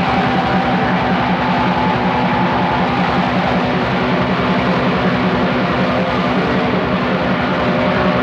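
Raw black metal: heavily distorted guitars and drums in a dense, fuzzy lo-fi wall of sound with a fast, unbroken pulse.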